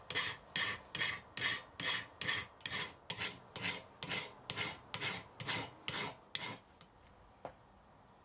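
Hand file scraping back and forth across a small metal drop arm clamped in a vice: about sixteen even strokes, roughly two and a half a second, stopping about six and a half seconds in. A faint click follows a second later.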